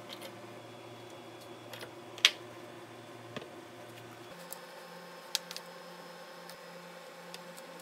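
A few small, sharp clicks and taps of metal parts and tools being handled on a wooden workbench, the loudest about two seconds in, over a faint steady hum.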